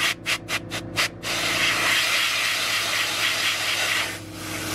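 Compressed air from an air-compressor blow gun blasting dust out of a graphics card's ports: a quick run of short puffs, about five a second, then one long blast of about three seconds that breaks off briefly near the end and starts again, over a steady low hum.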